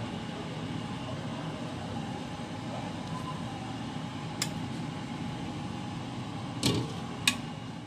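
Steady background hum with a few light clinks of a metal ladle against a ceramic soup bowl, the two loudest near the end.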